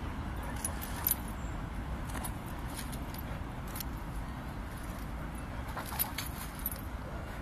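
Steady low outdoor rumble with a few small, sharp metallic jingles and clicks, the clearest about a second in and about six seconds in.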